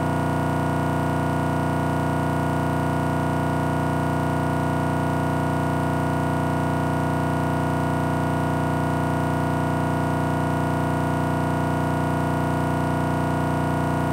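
Steady, unchanging electronic buzz made of many fixed tones: a recording glitch, with a tiny scrap of audio looping over and over in place of the game's sound.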